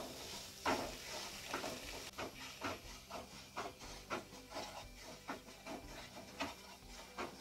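A spatula scraping and stirring semolina as it roasts in ghee in a nonstick kadhai, in short strokes about twice a second.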